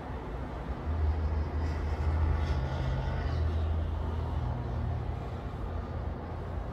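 Steady low rumble of road traffic, with a vehicle's deeper drone swelling about a second in and easing off after a few seconds.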